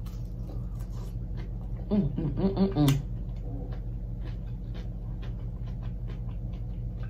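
Close-miked chewing of a crispy fried chicken wing: scattered small crunches and mouth clicks over a steady low electrical hum, with a brief mumbled voice about two seconds in.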